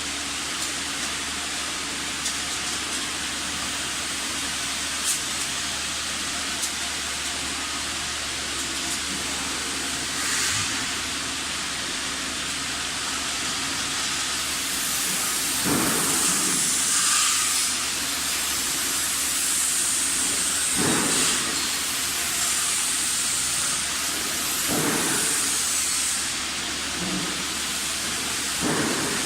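Heat pump drying oven's fans running with a steady hiss of moving air and a faint low hum. A few short knocks are scattered through, and the high part of the hiss grows louder about halfway.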